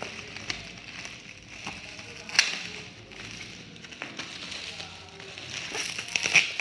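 Packaging being unwrapped by hand: crinkling and crackling with scattered clicks. There is one sharp snap about two seconds in, and the crinkling gets busier near the end.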